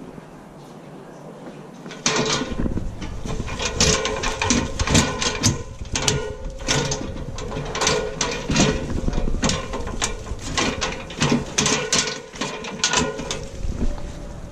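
Hurricane shutter panels being handled, clattering and rattling in quick irregular knocks that begin about two seconds in.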